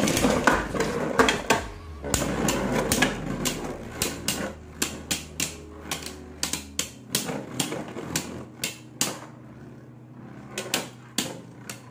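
Two Beyblade Burst spinning tops whirring and clashing in a plastic stadium: a dense rattle of contact in the first couple of seconds, then a run of separate sharp plastic-and-metal clacks, several a second, as the tops collide and hit the stadium wall, growing sparser near the end.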